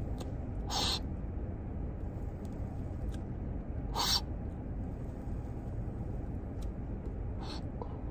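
Short hissing draws of breath as a man pulls on two blunts held together in his mouth: one about a second in, another about four seconds in, and a fainter one near the end, over a steady low hum.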